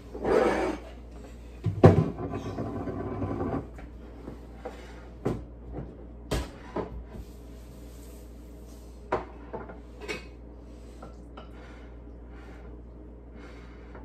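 Bottles and other kitchen items being moved and cleared off a counter: a sharp knock about two seconds in, a couple of seconds of rustling and shuffling, then scattered light knocks and clinks that die away after about ten seconds.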